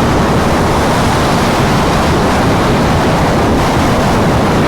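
Loud, steady wind rush over a helmet-mounted microphone on a sport motorcycle at highway speed, with the engine buried beneath it.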